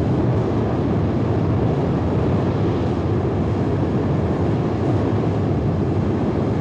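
Space Shuttle Main Engine, a liquid-hydrogen/liquid-oxygen rocket engine, firing on a test stand: a loud, steady, unbroken noise of the rocket exhaust, heaviest in the low range.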